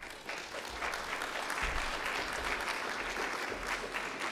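Audience applauding: many people clapping at once, a steady dense clatter of hand claps.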